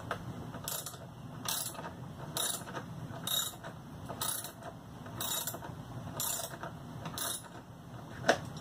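Socket ratchet wrench clicking in short runs about once a second, one on each back-swing, as it loosens a bolt on a lawn mower. A single sharper click near the end.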